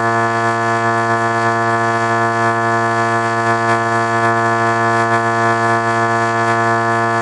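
A sound effect stacked into a chord: several held tones sounding together as one steady, unchanging drone.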